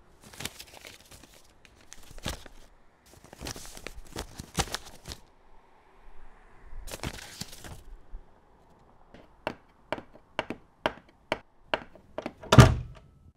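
Paper rustling and being handled on a desk as a folded paper sign is set up. Then footsteps click on a hard floor at about two a second and end in a loud thump near the end.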